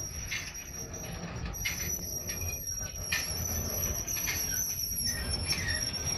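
Autorack freight cars rolling slowly past on steel wheels, with a steady high-pitched wheel squeal held throughout and a fainter, higher tone above it. Under it runs the low rumble of the cars, with short scattered squeaks. The train is slowing, as if to stop.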